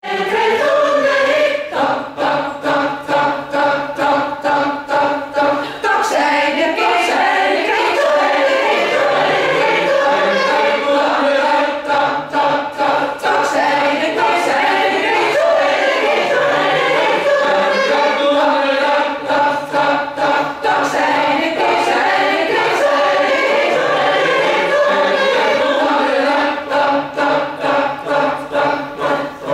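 Choir of mostly women's voices singing together, in short, evenly spaced phrases at the start and near the end, with smoother, held singing in between.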